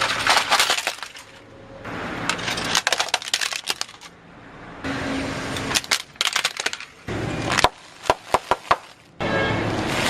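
Crisp crunching and cracking of something brittle being crushed, in several short bursts of dense crackles that start and stop abruptly.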